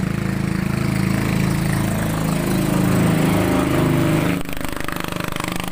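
A small engine running, rising a little in pitch and then easing off about four seconds in.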